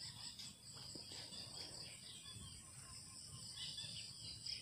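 Faint, steady chorus of insects, crickets, a constant high-pitched trill.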